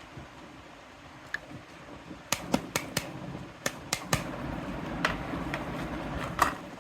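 Pieces of a mini toy kitchen set being handled: a quick run of sharp clicks and taps, then a few more spaced ones over soft handling rustle, the loudest near the end.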